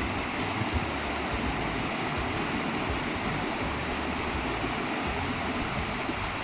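Waterfall cascades and stream water rushing into rock pools: a steady, even rush of water.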